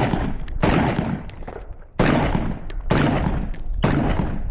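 A string of loud rifle shots, about four, irregularly spaced, each with a long echoing tail.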